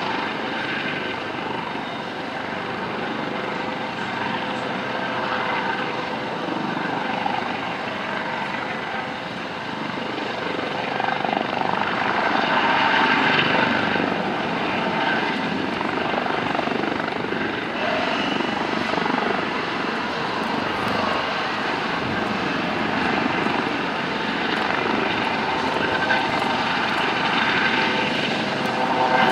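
US Coast Guard MH-65 Dolphin helicopter hovering low over the sea, its rotor and twin turboshaft engines running steadily. The sound swells a little louder about halfway through.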